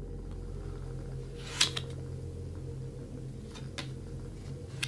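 A few short clicks and snaps of a deck of playing cards being handled as a card is pulled and flipped, the sharpest about a second and a half in. Under them runs a steady low hum of room tone.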